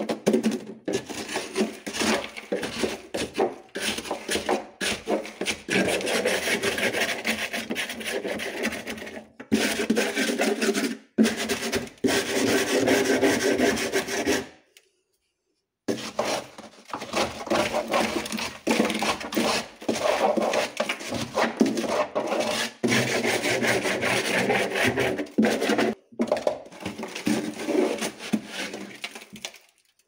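Built-up frost and ice being scraped by hand off the inside walls of a chest freezer with a plastic scraper, in quick repeated scraping strokes, with a short break about halfway. The freezer is being defrosted of a thick frost layer.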